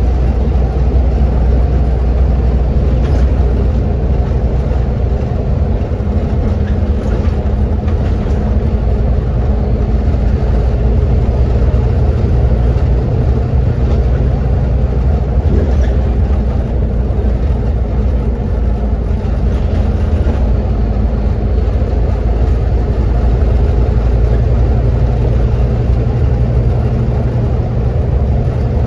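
Scania Omnicity double-decker bus on a Scania N230UD chassis, heard from inside the cabin: the diesel engine drones steadily under way, mixed with road and tyre noise and light interior rattles.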